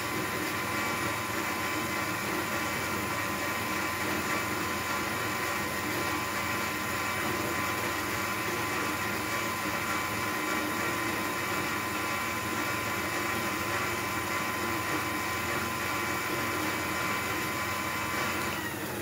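Electric bicycle motor spinning with no rider or load on a 24 V battery, a steady whine at constant speed that dies away near the end.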